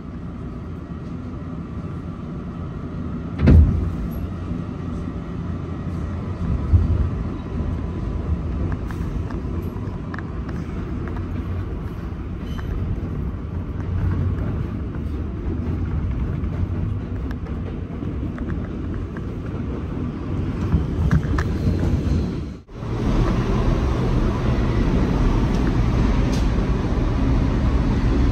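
New York City subway train rumbling, growing louder over the stretch, with a sharp bang a few seconds in and a smaller knock a few seconds later. The sound cuts out for a moment about two-thirds of the way through and comes back louder.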